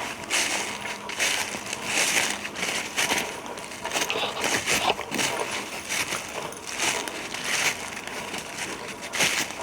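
Footsteps crunching through thick dry fallen leaves at a walking pace, a crackling crunch with each step.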